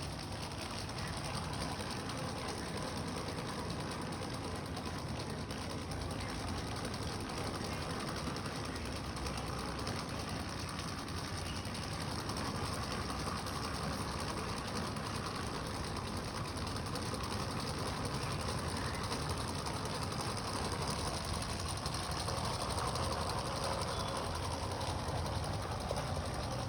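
Small 3D-printed Stirling engine running steadily, its plastic linkages and walking legs clattering in a rapid, even rhythm.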